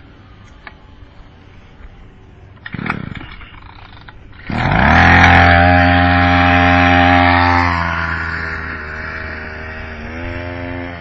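Small scooter engine ticking over, with a short burst about three seconds in, then revved hard at about four and a half seconds, held at high revs for about three seconds and eased back to a lower speed, with a brief blip near the end. The engine has been dying whenever given gas, which the owner blames on the carburetor.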